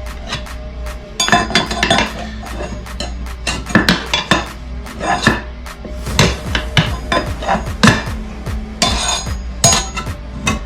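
Forged tyre levers clinking and clanking against a scooter wheel rim in sharp irregular knocks while a tyre is worked onto it, over background music with a steady beat.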